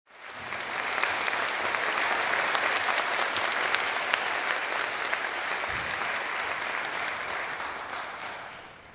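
Audience applauding in a concert hall: steady, dense clapping that starts abruptly and fades away near the end.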